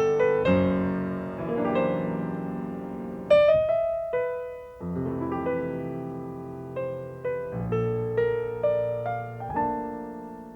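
Solo piano playing slow, gentle chords and single melody notes, each note struck and left to ring, with a short pause about four seconds in.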